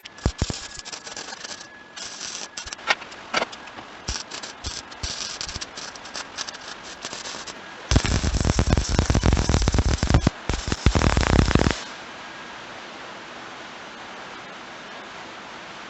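Scattered knocks and crackling clatter, then two loud runs of rapid rattling impacts, together about four seconds long from about halfway in, followed by a steady hiss.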